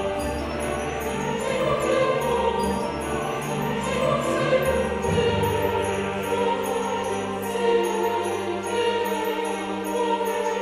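Christmas background music, orchestral with choir-like voices, with jingle bells keeping a steady beat.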